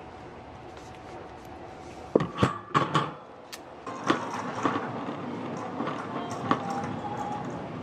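Hard plastic food storage containers clacking together as they are handled, a quick cluster of knocks about two seconds in. Afterwards a steady shop background with scattered light clicks.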